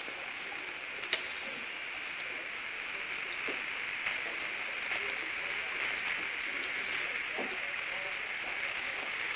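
Steady, high-pitched drone of insects, with faint voices low underneath.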